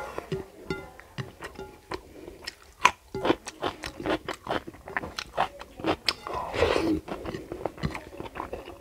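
Close-miked, wet chewing and lip-smacking of rice and curry eaten by hand, in many quick irregular smacks and clicks. Fingers mix and scrape the food on the plate, with a longer rustling stretch about six and a half seconds in.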